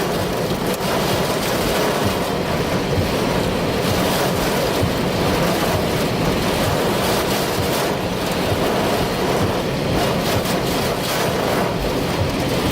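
Strong wind rushing and buffeting the microphone, a loud, steady noise with a flickering low rumble.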